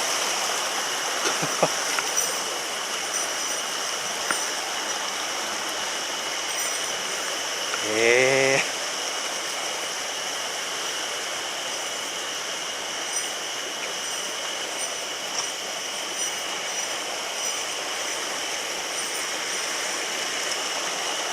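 Steady rush of a mountain stream. About eight seconds in, a short rising whine lasts under a second.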